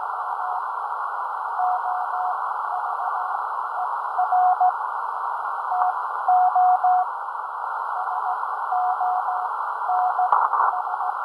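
Morse code on a Ten-Tec 506 Rebel QRP transceiver: a single steady-pitch tone keyed in dots and dashes over constant receiver hiss, with a short burst of crackle near the end.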